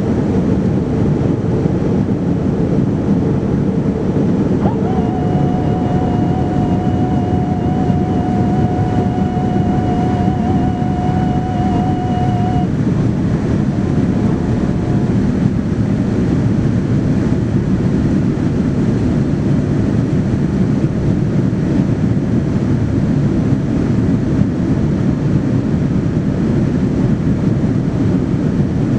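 Boeing 787-9 airliner heard from inside the cabin: the steady, deep rush of its GEnx turbofan engines and airflow after takeoff. A thin wavering whine rises over it about five seconds in and stops some seven seconds later.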